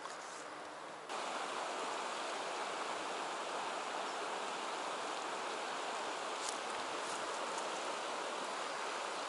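Steady rush of a shallow river running over rocks, an even hiss with little low rumble, stepping up suddenly in level about a second in.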